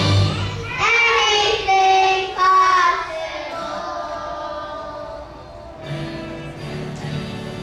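A child singing over musical accompaniment, a few short sung phrases in the first three seconds, then the music carries on more softly with held notes.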